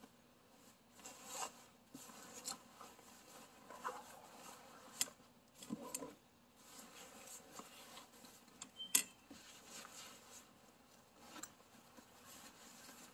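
Canvas Bimini top being folded and handled: irregular fabric rustling and rubbing, with scattered light clicks and taps from its frame and straps and one sharp click about nine seconds in.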